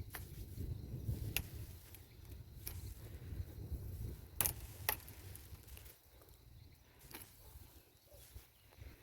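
Dry kindling twigs snapping with sharp, irregular cracks, about one every second or so, over a low rustling rumble that dies down about six seconds in.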